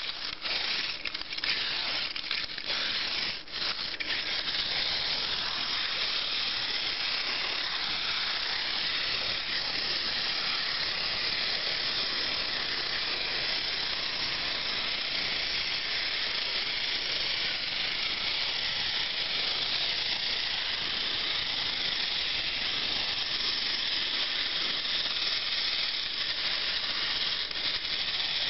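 Wind-up Bender robot toy: a few ratcheting clicks as its key is wound in the first few seconds, then its clockwork motor whirring steadily as the toy walks.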